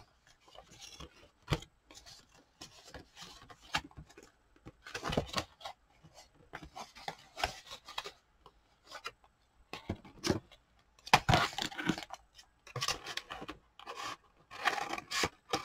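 Paper and card being handled and pulled apart: short bursts of rustling and scraping every second or two, with a few sharp ticks.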